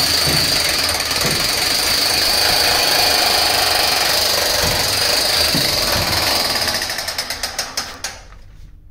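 Electric demolition hammer chipping cement out of a steel boat's keel bilge: a steady, rapid hammering with a high motor whine. The blows slow and stop about eight seconds in.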